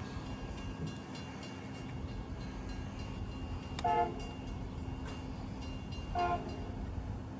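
Train horn sounding two short toots, a little over two seconds apart, over a steady low hum.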